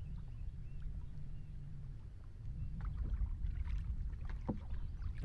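Canoe on the water: paddle splashes and water sounds, with a few light knocks and clicks in the second half, over a steady low rumble.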